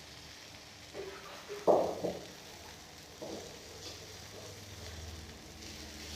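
Paneer tikka skewers frying in butter in a non-stick pan with a faint sizzle. A few short knocks against the pan, the loudest a little under two seconds in.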